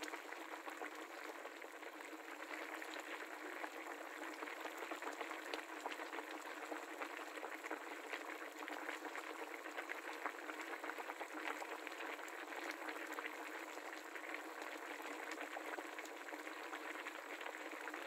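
Curry broth boiling vigorously in a black cast-iron pan: steady bubbling with many small pops.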